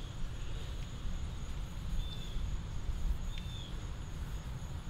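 Outdoor background: a steady low rumble, a thin high insect drone and two short bird chirps, about two and three and a half seconds in.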